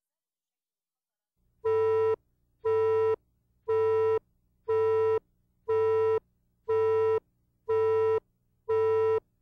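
Broadcast countdown-leader beeps: a short electronic tone sounds once a second, eight times, starting about a second and a half in, marking the countdown to the start of the tape.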